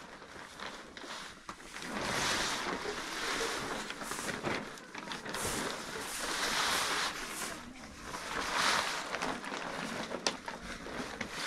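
Large plastic sheet rustling and crackling as it is spread out and smoothed over a concrete porch floor, in repeated swells, with a straw broom sweeping.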